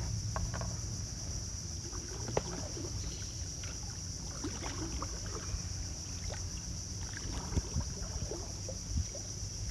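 Small fishing boat's motor running low and steady while the boat creeps along a mangrove river, with a steady high insect drone from the mangroves. A few light knocks are scattered through it.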